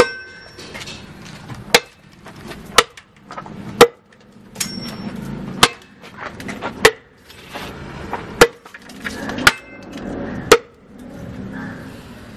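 Heavy custom bush sword, a 22-inch, 1.4 kg cutlass- and falcata-style steel blade, chopping into a log: nine sharp chops at an uneven pace of roughly one every second or so, the loudest about four seconds in.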